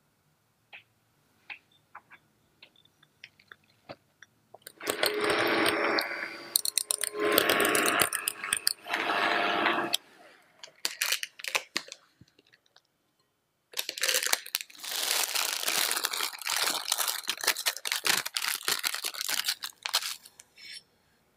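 Electric hand mixer beating cream cheese and heavy cream in a glass bowl, in three short spells about five seconds in. Later comes a longer spell of dense crackling full of sharp ticks.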